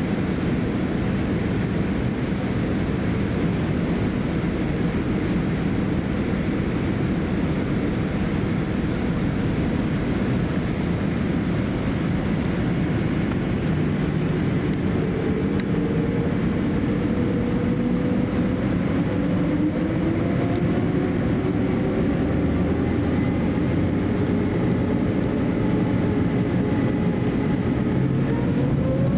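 Cabin noise of a Boeing 787-10 airliner taxiing: a steady rumble and hiss. About halfway through an engine whine begins to rise slowly, then climbs steeply near the end as the engines spool up toward takeoff thrust.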